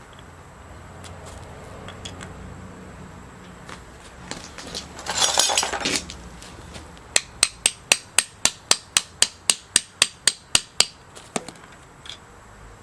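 A quick run of about twenty sharp, evenly spaced hammer taps on metal, roughly five a second, lasting about four seconds. A brief scraping rattle comes before them, near the middle.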